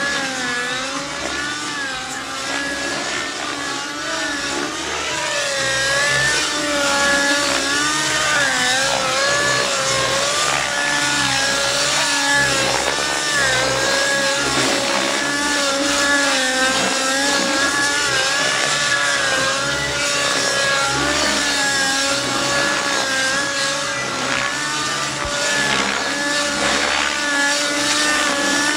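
Glow-fuel (nitro) engine and rotor of an Outrage Velocity RC helicopter, running hard through 3D aerobatics. Its engine note wavers up and down constantly as the rotor is loaded and unloaded in the manoeuvres.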